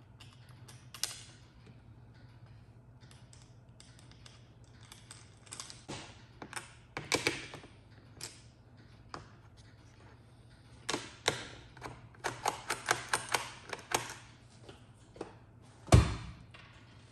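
Handling noise from a wired wooden pinball lamp panel: scattered clicks and short rattling clatters, with one heavy thump near the end.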